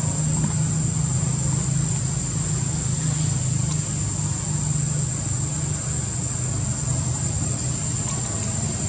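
Steady high-pitched insect drone from the trees, over a constant low rumble.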